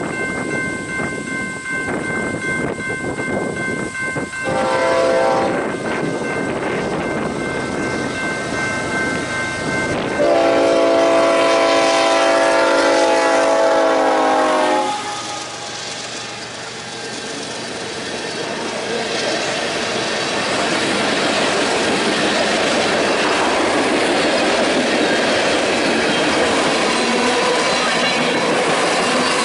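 A Union Pacific diesel freight locomotive's air horn sounds a short blast, then a long, louder one as the train approaches. The locomotive then passes and the freight cars roll by with a steady rumble of wheels on rail that grows louder toward the end.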